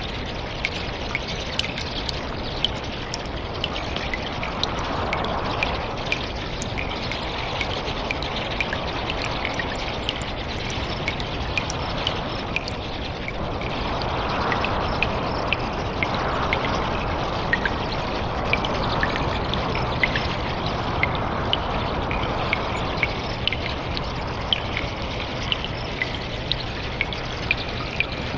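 Water trickling in a cave, with many small drips landing irregularly several times a second over a steady rush that swells louder from about halfway in.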